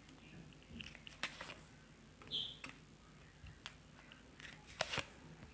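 Tarot cards being handled: a few faint, sharp clicks and a brief soft rustle, with a pair of clicks near the end.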